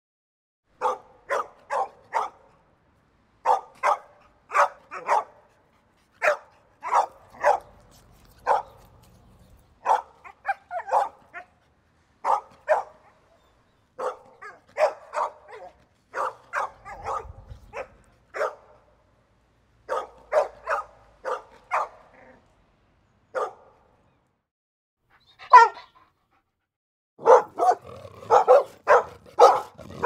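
Dog barking in quick runs of two to four sharp barks with short pauses between, the barks coming thicker and overlapping near the end.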